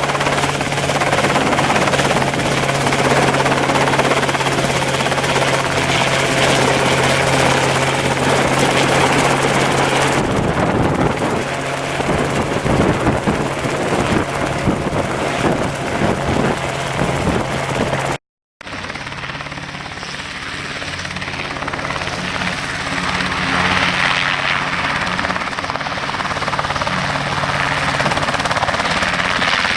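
RotorWay Exec 90 light helicopter running: a steady engine and rotor drone. The sound drops out for a moment about eighteen seconds in, then returns slightly quieter.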